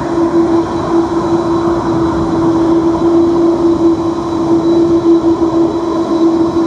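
Airbus A330's jet engines running at taxi power as the airliner rolls past: a steady pitched hum with a fainter high whine over an even rushing noise.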